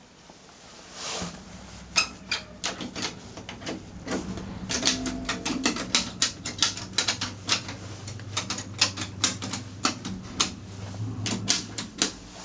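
Rapid, irregular metallic clicking and knocking from a stuck lift, over a steady low hum that starts about a second in.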